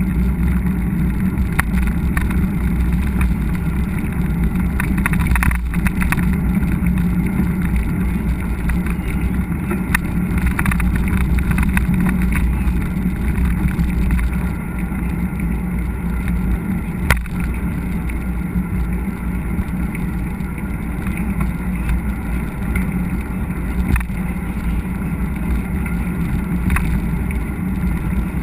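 Steady rumble of a mountain bike ride on a trail: wind on the microphone and tyre noise, with a few sharp knocks from bumps.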